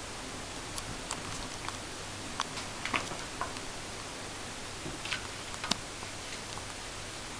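Kittens playing with a ball: scattered light taps and clicks of paws and ball on the floor, a few to a second, over a steady hiss.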